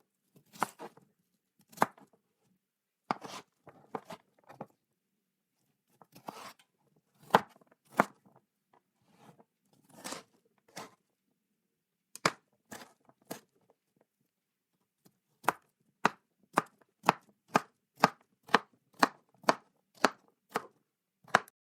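Knife chopping vegetables on a wooden cutting board: scattered single and double chops at first, then steady even chopping at about two strokes a second through the last third.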